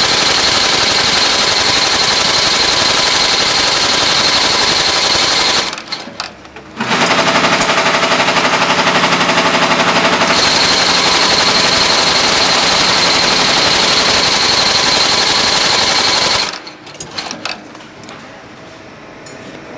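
A TOPEAGLE TSH-2619 double-needle Goodyear welt inseam chain-stitch machine runs at speed, stitching the welt onto a shoe with a fast, steady mechanical clatter. It pauses for about a second about six seconds in, runs again, and stops about three seconds before the end, leaving a few quiet clicks.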